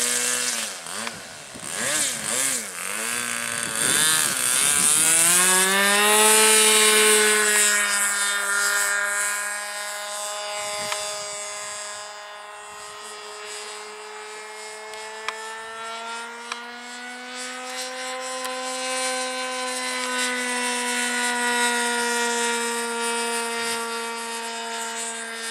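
Two-stroke .40-size glow engine of a radio-controlled high-wing trainer plane. It wavers at low throttle for the first few seconds, revs up sharply to full power about five seconds in for the takeoff, then holds a steady high-pitched buzz in flight, its pitch and loudness swelling and easing slowly as the plane passes.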